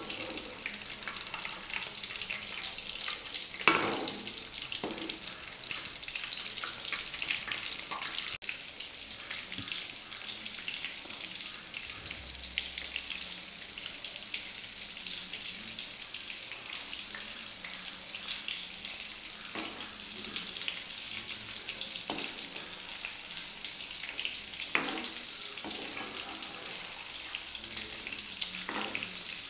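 Egg-coated fish cutlets deep-frying in hot oil in a metal kadai, a steady sizzle. A few clinks of a metal slotted spoon against the pan cut through it as the cutlets are turned, the loudest about four seconds in.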